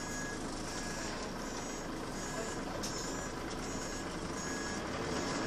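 Interior of a Volvo B10BLE single-decker bus on the move: steady engine and road rumble in the saloon, with a high-pitched beeping that pulses on and off over it.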